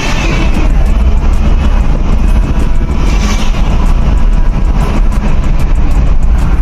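Mitsubishi Montero Sport's common-rail diesel engine running steadily, a loud continuous rumble with rapid ticking over it.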